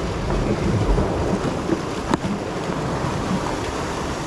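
Sea swell and surf washing against rocks, with wind buffeting the microphone; a single sharp click about two seconds in.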